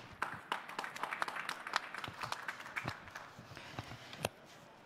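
Audience applause of scattered, separate claps that thins out and dies away near the end.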